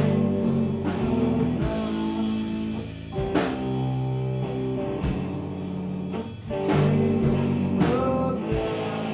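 Live rock band playing: distorted electric guitar chords over bass guitar, with a drum kit keeping a steady beat of cymbal and snare hits.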